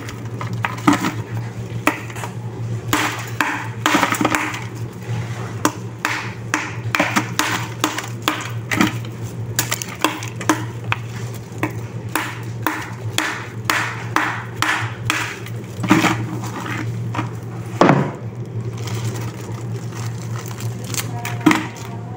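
Clear plastic bags crinkling and rustling as hands work them inside a metal pot, with many quick clicks and knocks against the pot. A steady low hum runs underneath.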